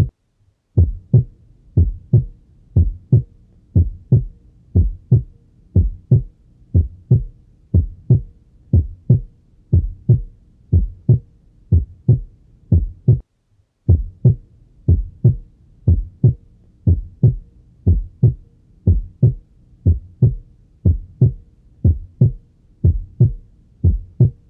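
Normal heart sounds: a regular lub-dub, the first and second heart sounds in pairs, about one beat a second, with a normal second heart sound. The recording breaks off briefly at the start and again about halfway through.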